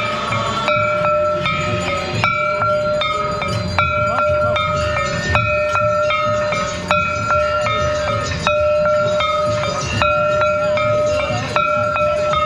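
Temple bells rung in a steady rhythm for the aarti: a strong ringing stroke about every one and a half seconds, with quicker, lighter strikes between, the same ringing pitches carrying on between strokes, over a low background din.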